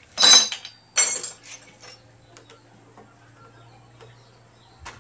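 Metal hand tools clinking against each other on a workbench: two sharp clinks in the first second, then a few faint ticks over a low steady hum.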